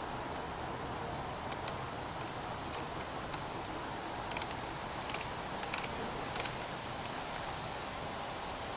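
Short bursts of rapid metallic clicking from a ratchet wrench tightening the negative battery cable clamp onto a newly fitted car battery. A few single clicks come first, then four quick bursts of clicks, over a steady background hiss.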